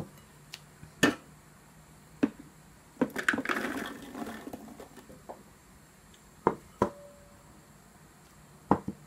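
Wild strawberries being moved into a plastic food-processor bowl: a spoon knocking on a glass bowl in single sharp clinks, and a rattling patter of berries tumbling into the plastic bowl about three seconds in. A few more separate knocks come near the end.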